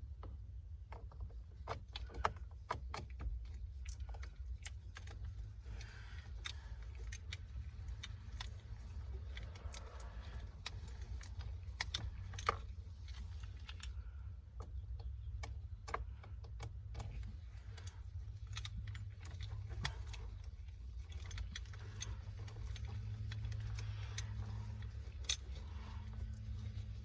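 Irregular small metallic clicks and clinks of a hand tool working, as the T30 Torx bolts holding the steering-wheel airbag are threaded in and tightened, over a steady low hum.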